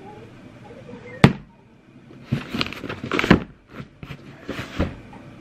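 A cardboard shipping box being handled on a tabletop: a sharp knock about a second in, then scraping and rubbing bursts as the box is slid and turned around.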